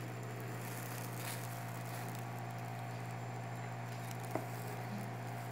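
Steady low hum with faint rustling and handling noise, and a single sharp click about four seconds in.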